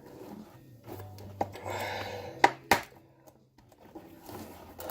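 Small screws and plastic humidifier parts being handled and set down on a hard surface: a few sharp clicks and a brief scraping rub, over a faint low hum.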